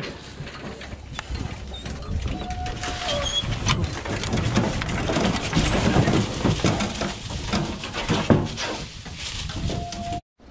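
A pack of hunting beagles scrambling out of a metal dog box and into dry leaf litter: paws rustling through the leaves, with repeated knocks and rattles from the box.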